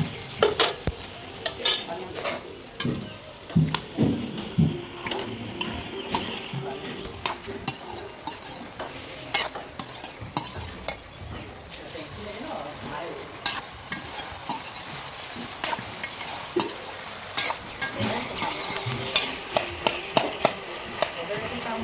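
A perforated steel skimmer stirs chopped bottle gourd and tomato in a steel kadai, clinking and scraping against the pan again and again, while the vegetables fry with a steady sizzle.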